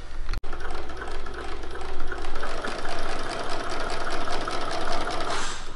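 Baby Lock Decorator's Choice computerized sewing machine stitching fabric at a fast, even rate, working normally after its repair. It starts about half a second in and stops just before the end.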